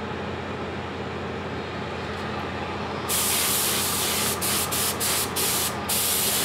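Gravity-feed spray gun spraying paint at 30 PSI: a steady hiss starts about three seconds in and is cut by about five short breaks as the trigger is let off and pulled again, barely misting a light coat on. A steady machine hum runs underneath throughout.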